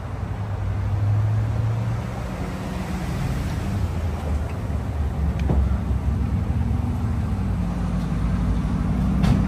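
Lexus GX470 SUV under way: steady tyre and road noise with a low engine hum, growing louder over the first second or so as the car picks up speed.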